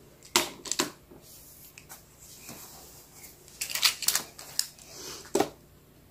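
Plastic magnetic building tiles clicking and clacking as they are snapped together and handled: a couple of sharp clicks about half a second in, a cluster of clicks near the middle, and one more about a second before the end.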